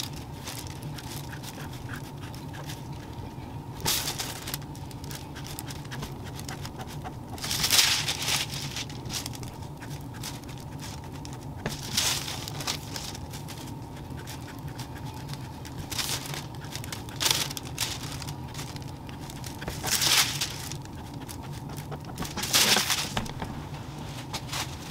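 Thin tracing paper rustling and crinkling as it is handled and shifted on a cutting mat, in short irregular bursts every few seconds over a steady low hum.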